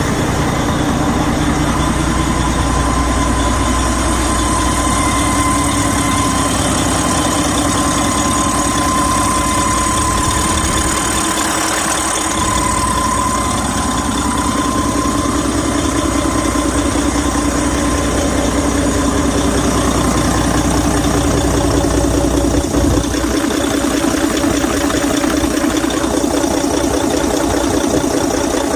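Detroit DD15 inline-six diesel engine idling steadily, with a thin high whine for roughly the first half. The engine's turbocharger has failed and is leaking oil.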